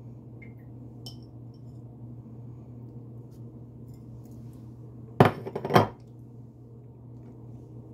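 A brief clatter of kitchenware: two sharp clinks about half a second apart with rattling between, over a steady low hum.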